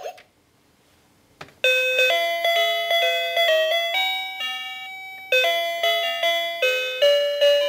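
Children's battery-operated toy piano playing an electronic melody in bell-like chiming notes, starting about a second and a half in after a single click of a button.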